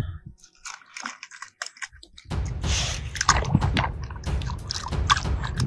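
Light clicks and knocks of small toy cars against a plastic basket. Then, from about two seconds in, a hand splashes and swishes in shallow muddy water, washing a small toy car with uneven sloshing.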